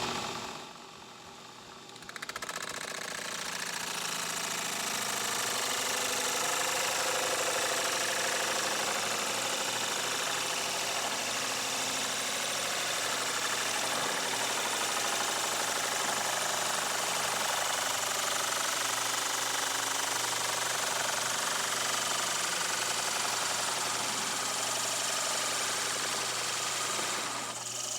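Drill press spinning a hole saw through a piece of wood to cut a test hole, a steady cutting and motor noise. The sound is much quieter for the first two seconds, then runs evenly, with a brief dip near the end.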